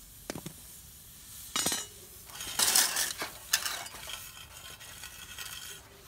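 Metal clinks and scraping of steel tools and a steel furnace lid against firebricks, with a louder harsh rasp near the middle.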